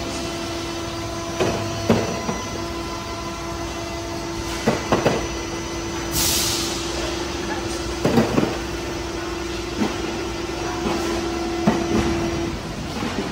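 PET preform injection moulding machine running: a steady machine hum with a held tone that stops near the end, irregular knocks and clatter, and a short hiss about six seconds in.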